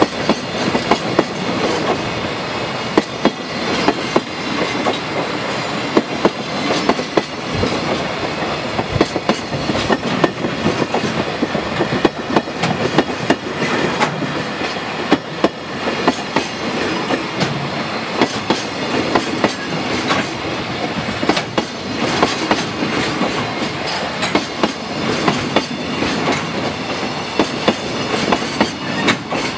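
Freight train of container flatcars rolling past close by, the wheels clacking over the rail joints again and again over a steady rolling roar.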